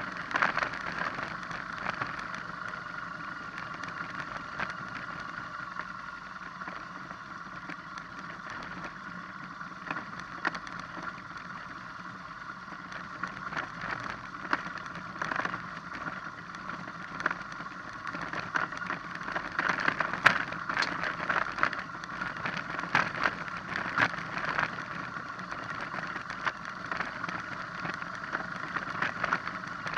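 BMW R1200GS boxer-twin engine running steadily while the motorcycle rolls down a rocky dirt track, its tyres crunching and knocking over loose stones. The knocks and rattles come thicker and louder in the second half.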